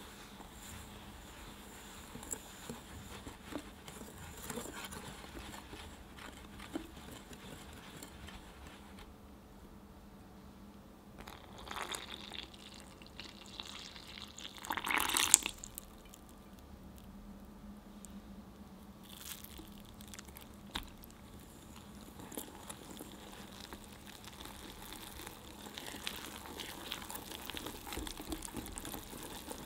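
A whisk stirring dry glutinous rice flour and sugar in a glass bowl, a soft scratching. About halfway through, hot milk is poured into the bowl with a short splashing rush, the loudest sound. Near the end the whisk stirs the wet batter.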